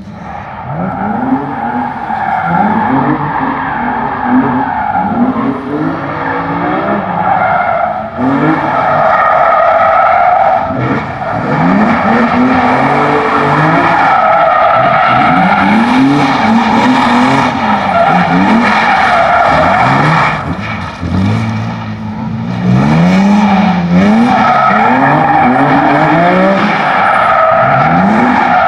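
BMW M3 engine revving up and falling back again and again, with tyres squealing as the car is thrown around a tight cone-and-tyre course. It builds up over the first couple of seconds and eases off briefly twice.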